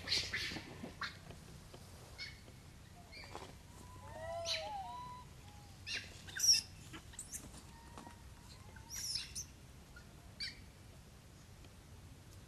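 Rhesus macaques calling: scattered short, high squeaks and chirps, with a short run of rising-and-falling coos about four seconds in.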